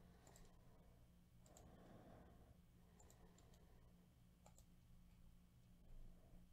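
Faint computer mouse clicks, a scattering of single clicks and quick pairs, over near-silent room tone with a low steady hum.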